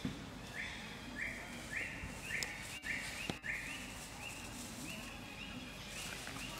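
A rhythmic series of short, buzzy high-pitched animal calls, about two a second, with a couple of brief clicks midway.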